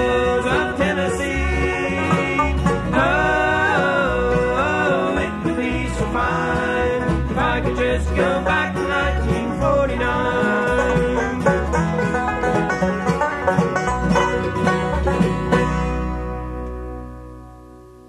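Bluegrass band of banjo, guitar, mandolin and bass playing the closing bars of a song. A final chord rings from about 16 seconds in and fades out near the end.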